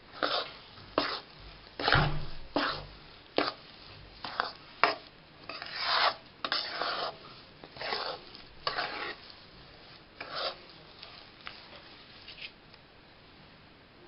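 Spatula scraping and stirring ghee-roasted gram flour (besan) around a kadhai, in short strokes roughly one a second that stop near the end. The besan is roasted and the ghee has started to separate, the sign that it is done.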